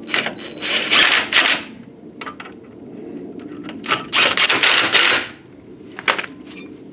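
DeWalt cordless impact driver hammering the front brake caliper bracket bolts tight, in two bursts of rapid hammering about a second and a half each, about four seconds apart.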